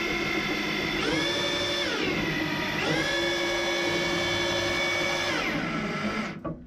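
Electric drill turning a long pilot bit into the wooden apron of a boat's stem. The motor whines steadily, speeds up twice and slows back down, then stops just before the end.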